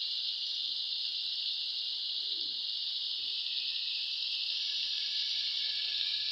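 Cauliflower florets and potato pieces frying in oil in a metal pan, a steady, even sizzle.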